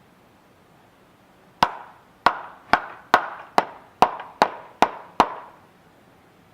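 Hammer striking a hubcap onto the end of a Radio Flyer Stroll 'N Trike's rear axle, nine sharp knocks at about two a second, each with a brief ring.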